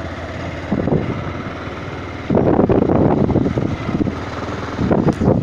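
Motorcycle engine running while riding a rough dirt track, with wind buffeting the microphone in loud gusts, the strongest starting a little over two seconds in.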